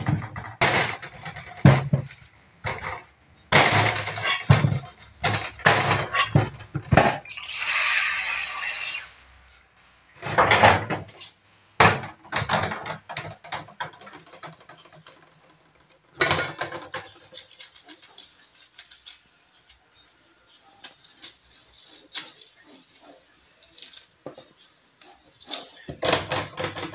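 Kitchen prep: a knife knocking on a cutting board and a spoon and ingredients clattering in an aluminium pot, in many separate sharp knocks, with a brief rushing hiss about eight seconds in.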